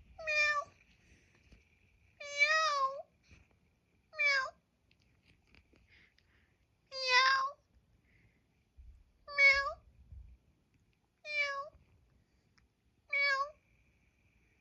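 Domestic cat meowing repeatedly: seven short meows, each about half a second or less, coming about every two seconds.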